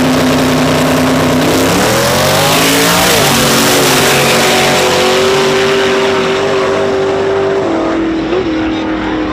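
Two drag-racing cars, one a big-block Chevy II Nova on nitrous, revving on the starting line. About a second and a half in they launch, their engine pitch rising and bending near three seconds in. They then run hard at a steady high pitch down the track, falling off near the end.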